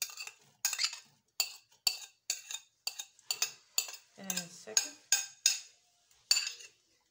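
Metal spoon scraping and knocking against a ceramic bowl as diced onion is pushed out into a stainless steel pot. A run of short clinks and scrapes, about two a second.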